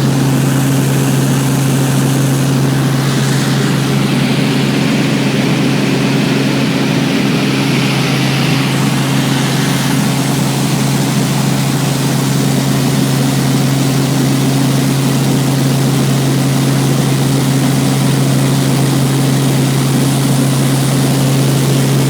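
Robinson R44 helicopter in flight, its Lycoming six-cylinder piston engine and rotors running steadily: a strong, unchanging low hum under a loud, even rushing noise.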